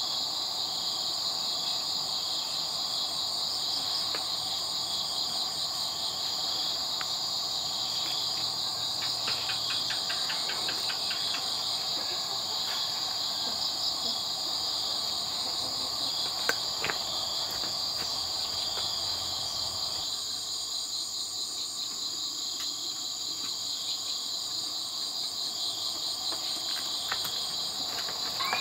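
Steady, high-pitched chorus of insects chirring, with a few faint clicks near the middle.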